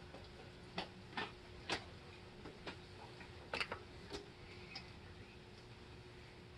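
A handful of light, irregular clicks and taps as plastic wiring-harness connectors and braided wires are handled and routed around an engine, over a faint steady hum.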